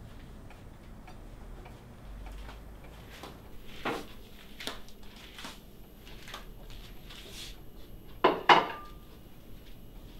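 Kitchen clatter of dishes being handled: scattered light knocks and clinks over a faint ticking clock, with two sharp knocks in quick succession about eight seconds in, the loudest sound.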